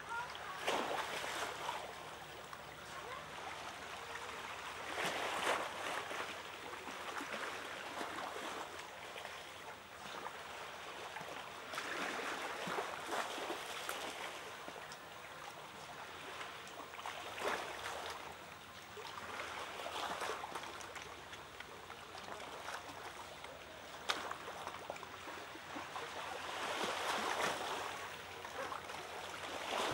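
Water washing and trickling over rocks in a shallow pool, swelling and fading every few seconds as waves surge through.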